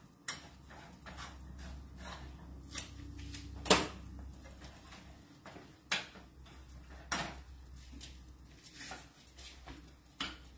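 A cooking utensil knocking and scraping against a skillet as scrambled eggs are stirred: scattered sharp clicks, the loudest a little under four seconds in, over a low steady hum.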